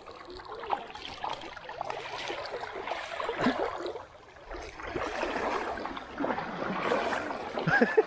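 Shallow river current running and gurgling, with irregular splashing as a landing net is dipped into the water and lifted out.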